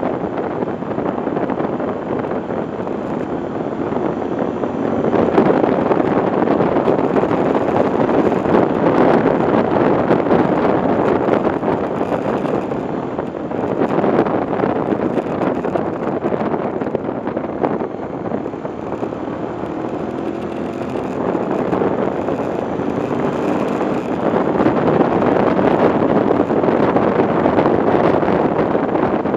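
Vehicle driving at road speed: a steady rush of wind and tyre noise with the engine running underneath, swelling and easing a few times as the speed changes.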